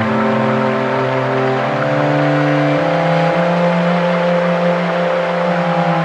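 Slow ambient background music: sustained chords with a low held note that steps to a new pitch twice, a little under two and about three seconds in, over a steady hiss.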